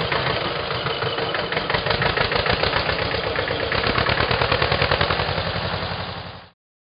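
Tractor engine sound effect running with a fast, even pulse, then fading out about six seconds in as the tractor drives away.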